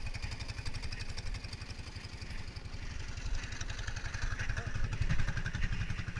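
Engine running steadily with a fast, even firing pulse, typical of the small engine of a snow machine, ATV or gas ice auger used for ice fishing.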